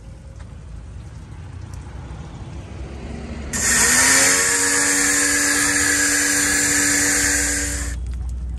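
Kapicon KP 40 pressure washer gun spraying: its motor starts about three and a half seconds in with a briefly rising whine, then runs steadily with the loud hiss of the water jet for about four seconds before cutting off suddenly.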